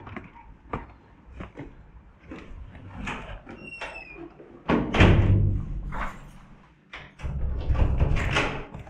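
A door opening and closing, with knocks, footsteps and scuffing. There is a short high squeak a little before four seconds in, and loud rough rubbing and thumping noise about five seconds in and again near the end.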